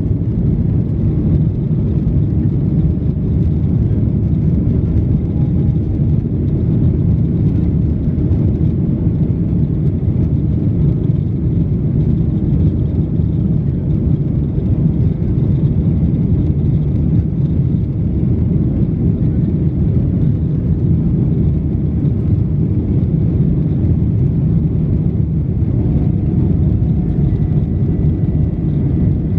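Boeing 737-800's CFM56-7B turbofan engines at climb power just after takeoff, heard from inside the cabin as a loud, steady, deep noise.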